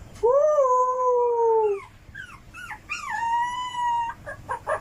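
A dog howling: a long howl that rises and then slowly falls, a few short whining yips, then a second, higher long howl about three seconds in.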